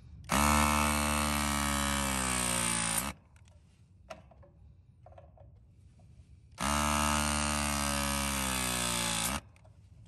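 Battery-powered press tool crimping a 3/8-inch copper refrigerant fitting, run twice. Each cycle is a motor whine of about three seconds whose pitch sinks slowly as the jaws close under load, then cuts off suddenly.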